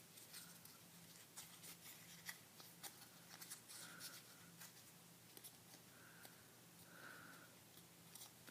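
Faint crackling and light clicks of a sheet of origami paper being handled and folded as a pocket is opened and flattened, over a low room hum.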